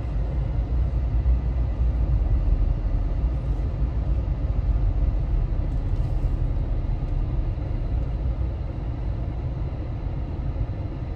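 Car cabin noise while driving slowly: a steady low engine and road rumble that eases slightly near the end.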